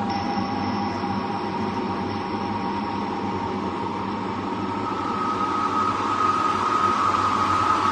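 Ominous ambient drone from a scary 'incoming' sound effect: a hissy rumble with a few held tones. A thin high tone fades away over the first five seconds, while a mid-pitched tone swells and the whole slowly grows louder, building tension.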